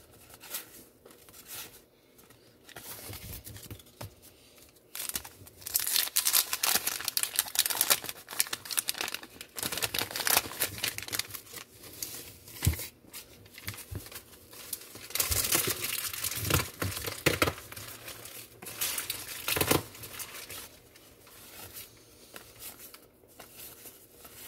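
Paper wax-pack wrapper of a 1990 baseball card pack being torn and crinkled by hand, in rapid crackly bursts that start a few seconds in and die down near the end.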